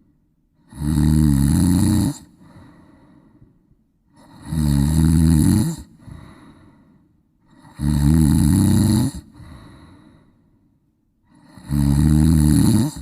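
A sleeper snoring loudly: four long snores about three and a half seconds apart, each lasting over a second, with a fainter breath out between them.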